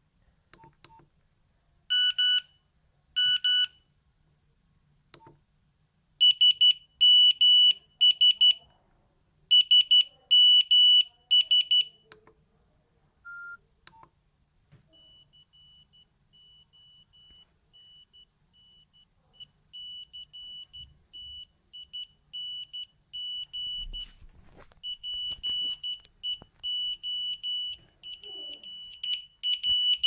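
Nokia 6310 mobile phone playing its built-in monophonic ringtones: short, high, single-pitched beeps in quick rhythmic groups. About halfway through, a long run of beeps starts faint and grows steadily louder toward the end.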